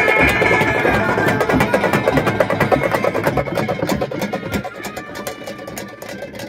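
Live procession music of hand frame drums beaten quickly, mixed with the noise of a dense crowd; it grows somewhat quieter in the last couple of seconds.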